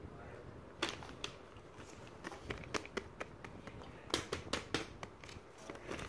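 Hands handling plastic and silicone fidget toys: irregular sharp clicks and light rustling, with a quick run of louder clicks about four seconds in.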